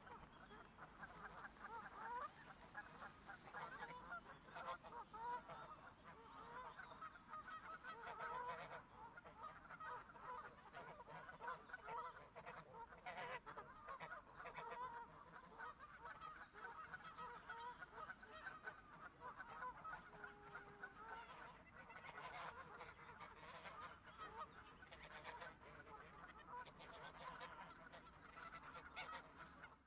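A flock of geese honking: many overlapping calls packed densely together without a break.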